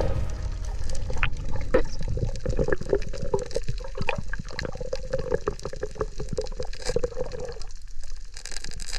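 Water sloshing and bubbling close to the microphone, with many small clicks and pops, as a snorkeller moves through the water hunting squid.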